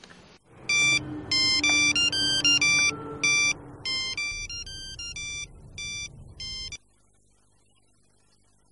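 Phone ringtone: a melody of short electronic beeps at changing pitches. It starts about a second in and cuts off suddenly about seven seconds in.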